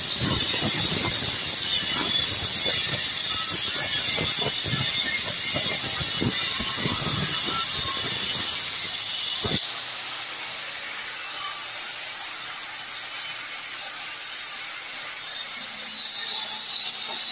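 Electric angle grinder with a cutting disc grinding into a wall-tile joint to cut out tiles: a high whine with a rough, rasping scrape. A little under ten seconds in, the disc comes off the tile and the grinder runs free with a steadier, quieter whine.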